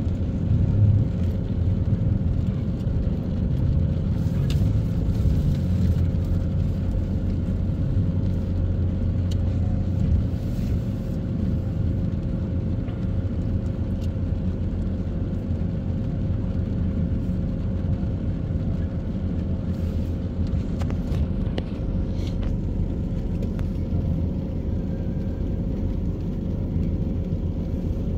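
Steady low rumble of a car's engine and road noise, heard from inside the cabin as the car creeps along in slow traffic, with a faint steady hum.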